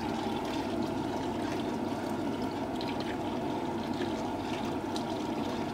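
A pot of boiling kuzhambu (curry gravy) on the stove, a steady bubbling hiss with faint small clicks, as thin maida batter is poured in and stirred.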